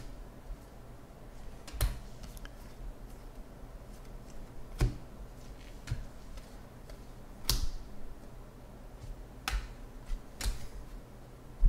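Bowman baseball cards being flipped through by hand, one card at a time moved to the back of the stack: seven sharp card snaps, one to three seconds apart, over faint room hiss.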